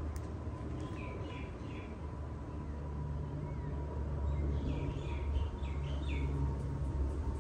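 Birds chirping: two runs of short, quick, falling chirps, one about a second in and another after about four and a half seconds. They sit over a steady low rumble and a faint steady tone.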